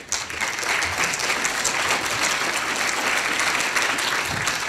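Lecture-hall audience applauding steadily, starting suddenly and fading out near the end.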